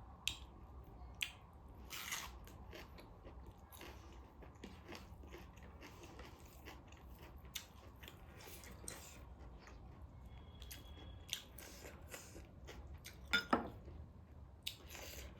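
Close-miked chewing and biting while eating taro root with dried meat: irregular wet mouth clicks and crunches over a low hum, with the sharpest pair of clicks near the end.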